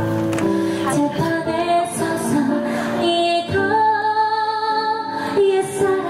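A woman sings into a microphone over amplified backing music, holding one long note about halfway through.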